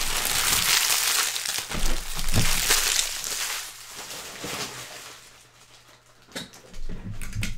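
Crinkly packaging being crumpled and handled, dense crackling for the first few seconds, then dying down to a few light taps and clicks near the end.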